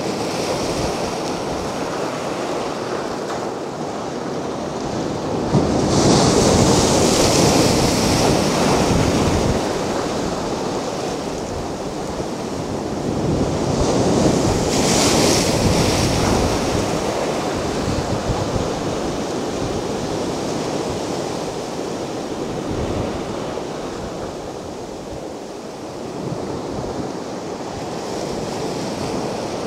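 Mediterranean sea waves breaking and washing on a beach, a continuous surf noise with two bigger waves surging in, about six seconds in and again around fifteen seconds. Some wind on the microphone.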